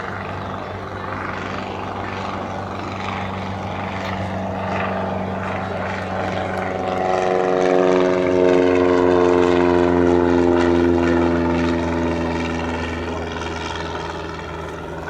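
Cessna 170A's piston engine and propeller at takeoff power as the plane passes. It grows louder to a peak about halfway through, with its pitch sliding slowly down as it goes by, then fades a little.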